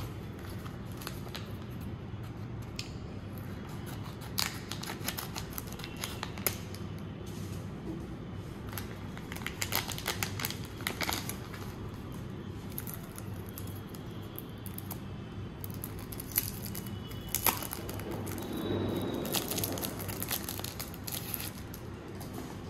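Wrapper of a Topps trading card pack being torn open and crinkled, with scattered crackles and clicks over a steady low hum.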